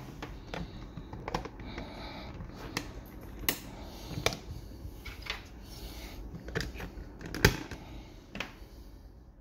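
Hands handling a small plastic network switch: irregular sharp plastic clicks and rustling as an Ethernet cable's RJ45 plug is pushed into a port of a UniFi Switch Flex and its snap-on plastic port cover is fitted back over the ports. The sharpest click comes about three-quarters of the way through.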